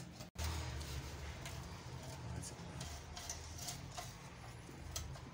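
Faint, irregular clicks and taps of a hand tool tightening the pull-starter housing back onto a 5.5 HP generator engine, over a low steady hum.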